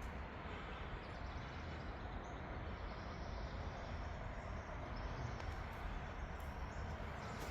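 Steady outdoor background noise with a low rumble and no distinct events, and a faint thin high sound in the middle.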